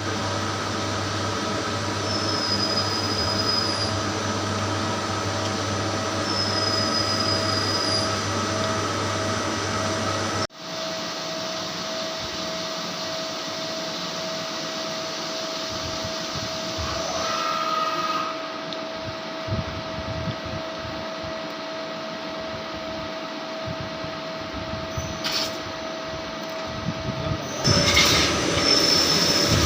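CNC machine running: a steady mechanical whine over a low hum, changing abruptly about ten seconds in and turning louder and noisier near the end.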